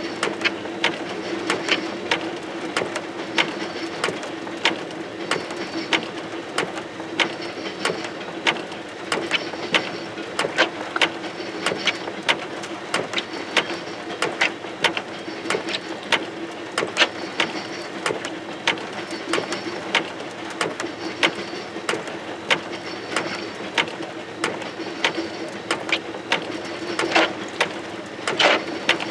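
Freight train's tank cars and covered hoppers rolling past, their wheels clicking over rail joints in a quick, steady rhythm, with a steady hum beneath.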